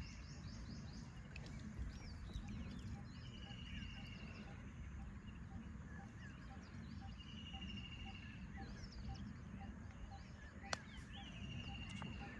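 Birds chirping and calling around a river, with a short trill repeated about every four seconds and a pulsing note about twice a second, over a low steady rumble. A single sharp click comes near the end.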